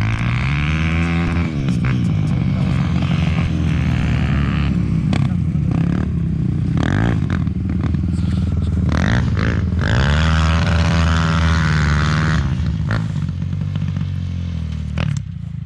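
Single-cylinder dirt bike engine revving up and down as it rides, its pitch climbing and falling again and again, with strong pulls at about one second and about nine seconds in.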